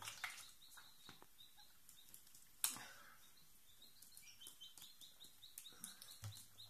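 Near silence: room tone with a run of faint, short, high chirps in the second half and one sharp click about two and a half seconds in.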